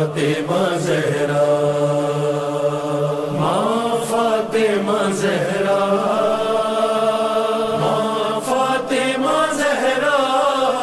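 Opening of a noha, a Shia lament: a male reciter vocalises without words, his voice bending and gliding over a steady hummed chorus drone.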